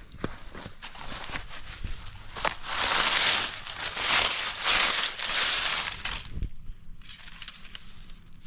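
Dry brush and leaf litter crunching and crackling, with twigs snapping in quick clicks; loudest for a few seconds in the middle.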